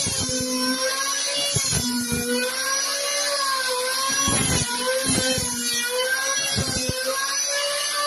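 Electric palm sander running against a wooden door, its motor whine wavering in pitch as it is pressed and moved, with irregular knocks and scrapes from the pad on the wood.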